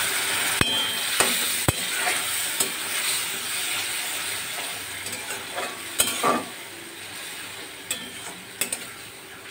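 Onion-tomato masala sizzling in a metal kadai while a flat metal spatula stirs and scrapes through it, with several sharp clicks of the spatula against the pan. The sizzle dies down gradually as the masala is fried nearly done.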